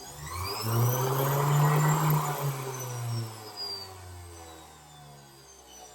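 Rotary tool on a flex shaft, fitted with a mini circular saw blade, spinning up quickly with a rising whine and running free with no cut. About three seconds in it is switched off, and the whine falls in pitch as it winds down over the next couple of seconds.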